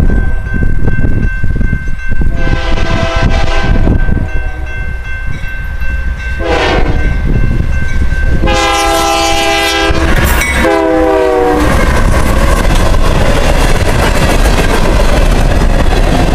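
Union Pacific diesel locomotive's air horn sounding for a grade crossing: a long blast, a short one, then a long one whose pitch drops as the locomotive passes. Then the empty coal cars roll past with a steady rumble of wheels on rail.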